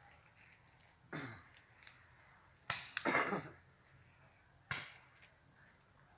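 Sharp pops from the paintball game: one about a second in, a quick cluster of three near the middle, and one more a little over a second later.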